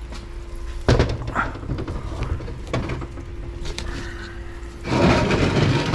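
Cast-iron cylinder head being handled on a metal bench: hard metal clunks about a second in and a few lighter knocks after, then a loud rattling, scraping burst near the end. A steady hum runs underneath.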